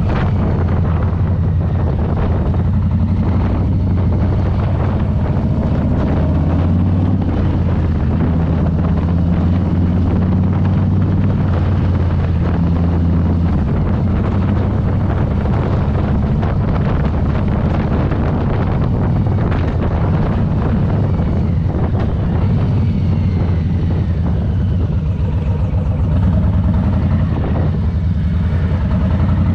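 Harley-Davidson Low Rider S's Milwaukee-Eight 117 V-twin engine running at low revs while riding, its engine speed shifting a little.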